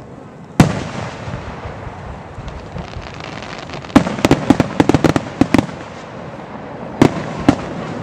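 Aerial fireworks shells bursting: one loud bang about half a second in, a quick string of sharp crackling pops about four seconds in lasting over a second, then two more bangs near the end.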